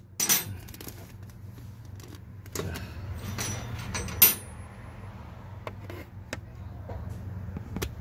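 Sharp metallic clinks and clatters from hand tools and belt-drive hardware as a new serpentine belt is worked onto a car's AC compressor pulley and the tensioner is released, loudest about four seconds in, over a steady low hum.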